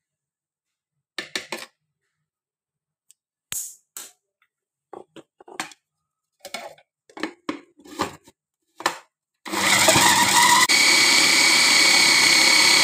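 A few short knocks and rustles as ingredients are added to the bowl. About nine and a half seconds in, an Iona electric food chopper starts and runs steadily with a high whine, blending the nugget mixture into a smooth paste.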